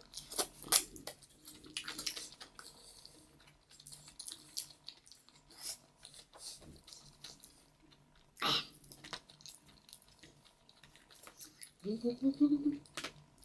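Close-up chewing and crunching of food, with scattered wet clicks, busiest in the first couple of seconds. A breathy sound about eight and a half seconds in, and a short voiced sound near the end.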